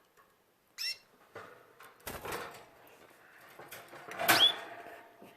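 Canary calls: a short high chirp about a second in, and a louder call near the end that rises quickly and holds, with a brief rustle between them.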